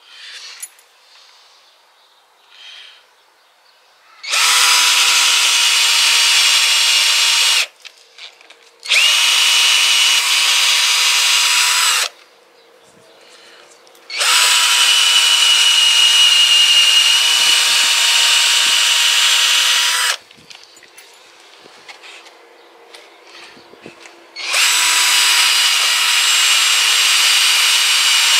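Handheld electric power tool working wood, its motor running in four bursts of a few seconds each at a steady pitch, with short pauses between.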